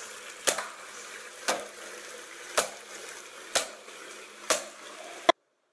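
Five sharp clicks, evenly spaced about a second apart, over a steady hiss; the sound cuts off suddenly near the end.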